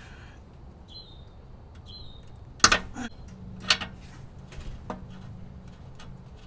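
A wrench knocking on the oxygen sensor and exhaust pipe of a pickup truck: three sharp metal clanks about a second apart, each ringing briefly. A small bird chirps twice before the clanks.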